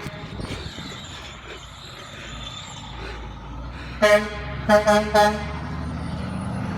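Logging truck's horn blowing three short blasts about four seconds in, over the low steady rumble of the truck's engine.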